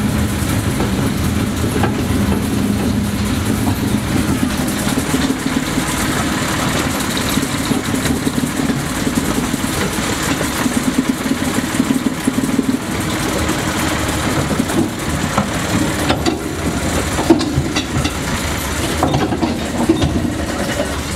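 Narrow-gauge diesel locomotive's engine running steadily as it hauls a passenger carriage, with the carriage wheels rumbling over the track and a few sharp knocks near the end.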